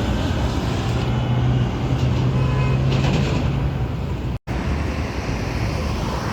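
Steady engine rumble with a low hum, broken by a split-second dropout a little past the middle.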